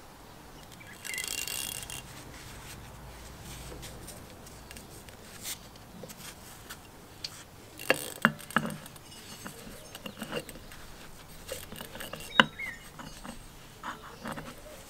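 Red plastic end cap of a small electric motor being handled and fitted onto the metal motor housing: scattered plastic clicks and knocks with the rub of gloved hands, after a short hiss about a second in.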